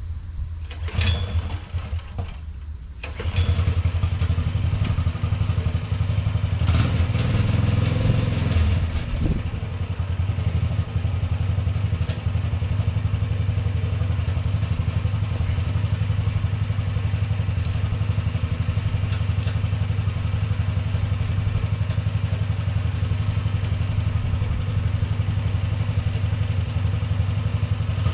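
Sears 10XL garden tractor's 6.5 hp single-cylinder Chinese clone engine running steadily, getting louder about three seconds in.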